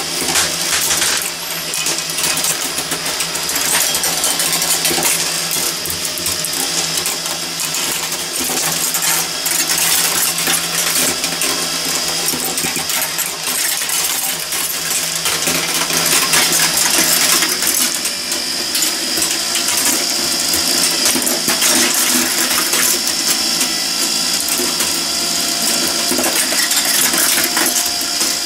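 Meccano marble machine running: glass marbles clinking and rattling along its steel Meccano tracks over the steady whirr of its geared drive.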